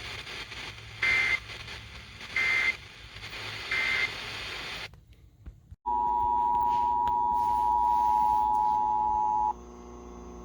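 Emergency Alert System broadcast heard over radio. Three short, high data bursts of the alert header sound about a second and a half apart over hiss. After a brief dropout, the loud two-tone EAS attention signal holds for about three and a half seconds, then cuts off to a low hum.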